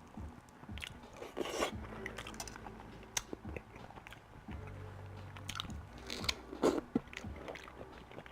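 A person biting and chewing food close to the microphone: scattered short, sharp clicks and smacks of eating.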